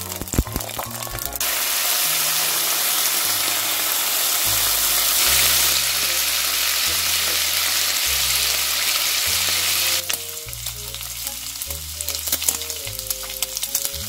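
Bacon strips frying in a hot pan: a loud, steady sizzle, then from about ten seconds in a lower crackle with scattered sharp pops as the bacon browns. Soft background music plays underneath.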